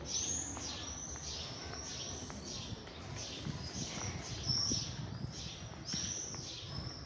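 Common swifts flying over the rooftops, giving high, shrill screams over and over, with a faint street murmur underneath.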